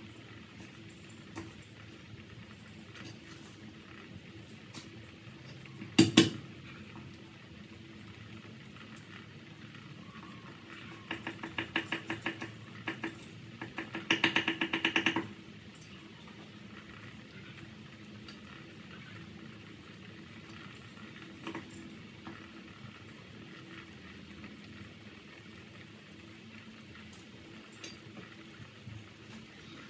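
Pork bone and vegetable soup simmering in a stainless steel pot, a faint steady bubbling. A single sharp clank of metal about six seconds in, and two quick runs of rapid clattering taps around the middle, the second louder.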